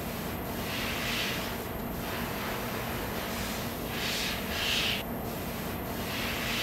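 Steady hiss with several short, louder hissing swells that come and go every second or two.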